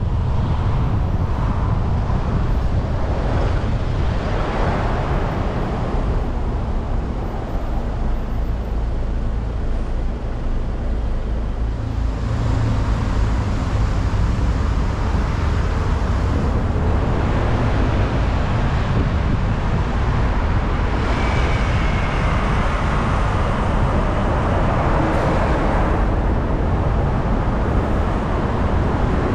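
Road traffic heard from a moving car: a steady low rumble of tyres and engines, with other vehicles swelling and fading as they pass.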